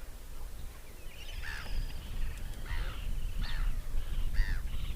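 Flamingos calling from a flock on the lake shore: a run of short nasal honks, about one a second, starting a second or so in.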